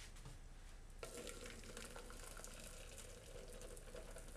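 Hot, freshly boiled sugar syrup pouring in a thin stream from a saucepan into a plastic mixer bowl: a faint, steady trickling hiss that starts about a second in.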